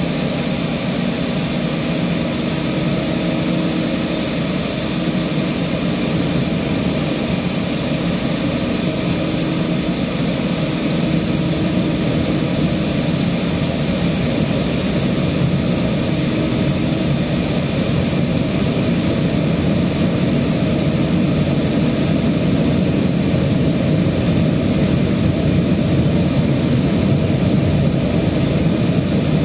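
Boeing 929 jetfoil's gas turbines (Allison 501-KF) driving its waterjets, a steady drone with a constant high whine above it.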